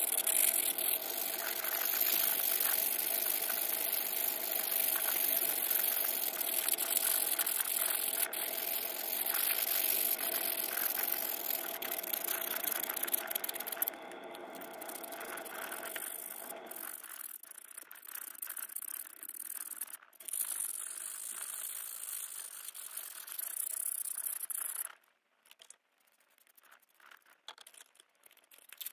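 Rusty needle-nose pliers scrubbed by hand with a bristle brush and an abrasive pad in a tub of liquid. A steady scrubbing noise gives way after about 17 seconds to quieter rubbing with scattered clicks of the metal, then briefly drops almost to nothing.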